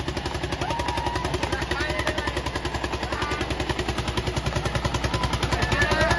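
Tractor diesel engines of an Eicher 241 and a John Deere labouring at full load in a tug-of-war pull. They give a rapid, even exhaust beat that grows louder toward the end, with people's voices calling over it.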